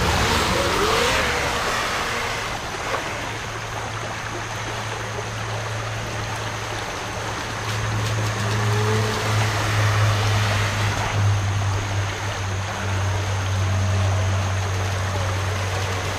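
Shallow creek water rippling steadily over rocks. Over it, the small electric motor and jet drive of an RC jet boat whine faintly, the pitch wavering as the boat runs off and comes back.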